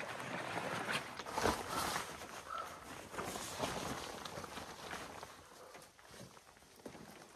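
Rustling of waterproof rain pants and a rain jacket being pulled on, with shuffling footsteps on a wet road; it grows fainter in the second half.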